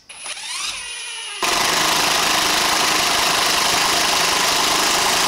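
Hitachi/Metabo triple-hammer brushless impact driver in auto mode driving a long screw into a wooden post. The motor whines up in pitch for about a second and a half, then the hammer mechanism kicks in and rattles loudly and steadily as the screw goes in.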